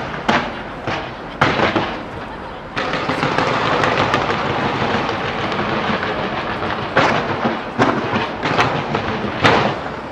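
Fireworks going off in quick succession: a few sharp bangs, then from about three seconds in a dense, continuous crackle, with several more sharp bangs in the last three seconds.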